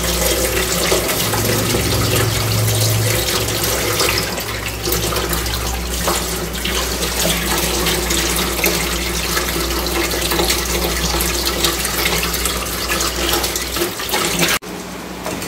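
Kitchen tap running into a steel bowl of cut fish pieces, the water splashing as hands rub and rinse the pieces in the sink. The sound drops suddenly near the end.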